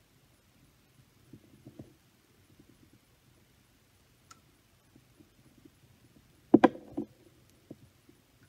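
Quiet handling noises, then a short cluster of sharp plastic clicks and knocks about six and a half seconds in: blood collection tubes being swapped in a vacutainer needle holder, a lavender-top tube out and a red-top tube pushed on.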